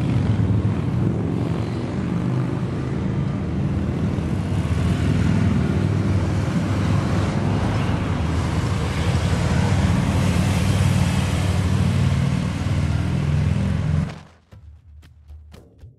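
Motorcycles and other traffic passing along a street, a steady loud engine sound. It cuts off abruptly near the end, leaving only faint ticks.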